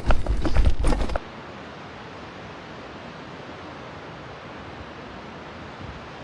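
A bicycle rattling and clattering over a cobblestone track, with wind rumbling on the microphone, for about a second; then the sound cuts off abruptly to a steady, even hiss.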